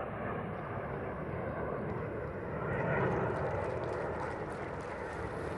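Jet engines of a formation of Aermacchi MB-339 jet trainers climbing and splitting apart, a steady rushing engine noise that grows louder about three seconds in.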